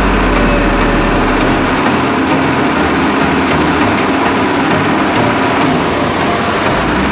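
Diesel engine of a loaded HOWO three-axle dump truck running as the truck moves slowly. Its deep rumble eases off about two seconds in.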